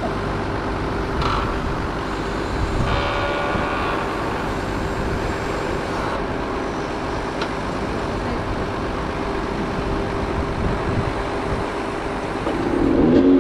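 An engine running steadily with a constant hum, and a few brief clatters in the first few seconds. Near the end its pitch shifts and settles into a louder, lower steady hum.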